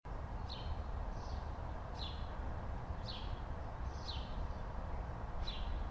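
A small bird chirping repeatedly outdoors, short downward-sweeping chirps about once or twice a second, over a steady low background rumble.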